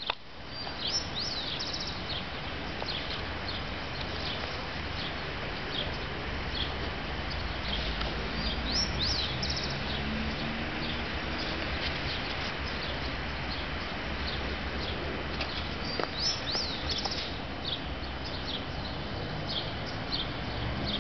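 Birds chirping and singing, with a longer song phrase coming back about every seven or eight seconds, over a steady low background rumble.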